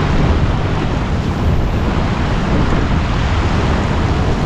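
Wind buffeting the microphone over water rushing along the hull of a Farr 280 sportsboat running downwind under spinnaker at about 8 to 10 knots: a steady, even rush.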